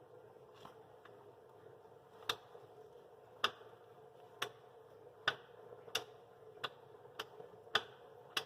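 A series of about ten light, sharp taps at uneven intervals, starting about two seconds in, over a faint steady hum, heard while the rusted cam bolts on a tractor's rear wheel rim are being worked loose.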